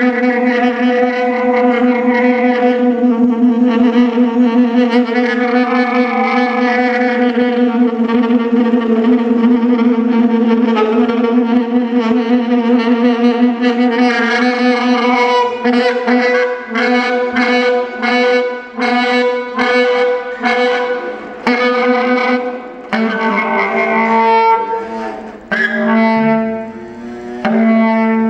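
Saxophone holding one long, slightly wavering note in free improvisation, then breaking into short stuttered notes and sharp clicks over the second half, the pitch shifting higher near the end.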